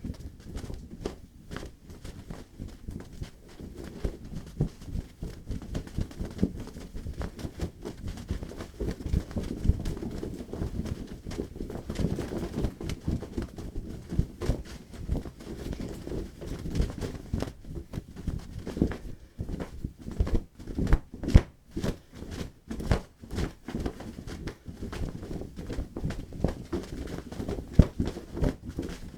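A small rug being shaken by hand, its fabric flapping and snapping in a quick, irregular run of dull thuds, with a few sharper cracks past the middle.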